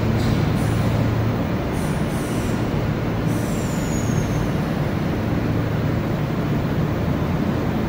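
Kintetsu 22000 series (ACE) limited express rolling slowly past along the platform, a steady rumble of wheels and running gear echoing in the underground station. A few faint, high wheel squeals come in the first half, the last a short falling one.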